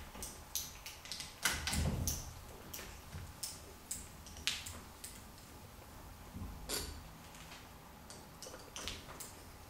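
Hand tools clicking and clinking on the metal of a Yamaha YZ250 cylinder as the power valve cover bolts are loosened with a T-handle driver and a ratchet. Irregular small clicks, with a few louder knocks, the loudest about a second and a half in.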